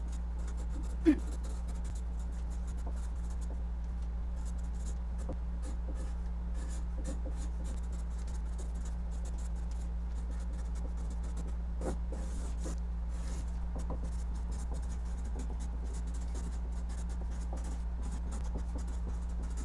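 Marker writing on a large sheet of manila paper: many short scratchy strokes, over a steady low hum. One brief sharp sound about a second in is the loudest moment.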